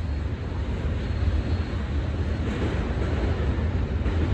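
CSX manifest freight train's cars rolling along the rails in the distance: a steady low rumble.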